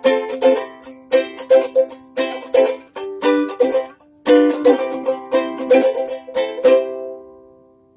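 Ukulele strumming chords in a steady rhythm, with a brief pause about four seconds in; the last chord rings out and fades away near the end.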